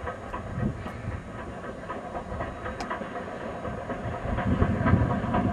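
Steam train running along the line, a steady rumble with scattered clicks from the wheels and track, growing louder over the last second or two as it draws nearer.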